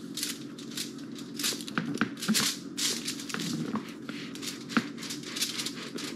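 A small peanut can used as a dough cutter, pressed and twisted down through thin pizza dough onto aluminium foil, giving a run of short, irregular scraping and crinkling sounds.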